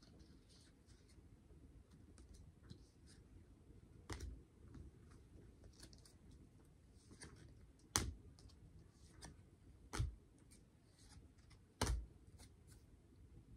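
Topps 2023 baseball cards being flipped through by hand: faint soft clicks of card stock sliding and snapping, with four sharper clicks about 4, 8, 10 and 12 seconds in.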